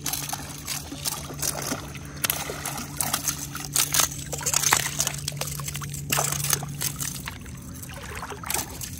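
A small hooked trout splashing at the surface and being scooped into a landing net, followed by water pouring and trickling out of the lifted net mesh in irregular splashes.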